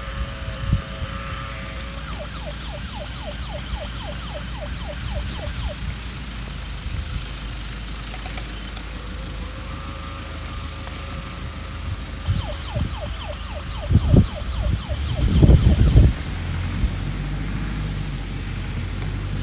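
A battery-powered toy helicopter's electronic siren sound effect: a steady wail alternating with runs of quick yelping chirps, about four a second. A few loud low thumps come about fourteen to sixteen seconds in.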